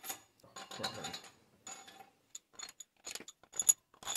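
Steel cylinder head bolts clinking against one another in a hand and against the cylinder head as they are set into their holes and started by hand: a series of short, irregular metallic clinks.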